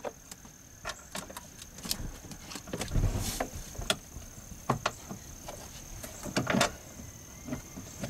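Irregular clicks and knocks from a seatbelt retractor and its webbing being handled and worked into place by hand, with a duller knock about three seconds in and a quick cluster of knocks near the end.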